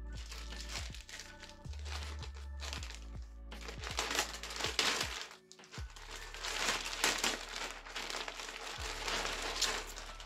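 Clear plastic shipping bag crinkling and rustling as a handbag is pulled out of it, loudest and busiest in the second half, over background music with steady low notes.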